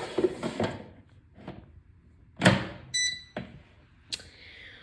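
Plastic clunks and knocks of an air fryer's basket being handled and slid into place, with a short electronic beep from the machine about three seconds in.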